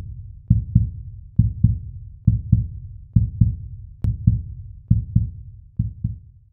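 Intro sound design of deep heartbeat-like double thumps, one pair a little under every second, fading out near the end, with a single faint click about four seconds in.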